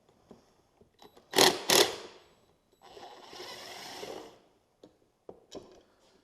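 Two loud knocks a little over a second in, then a ratchet wrench clicking steadily for about a second and a half as T30 Torx bolts are worked loose.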